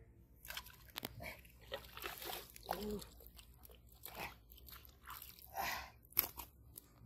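Irregular splashing and rustling as a hooked fish thrashes at the water's surface and is hauled in on a hand line, with scattered sharp clicks and crackles.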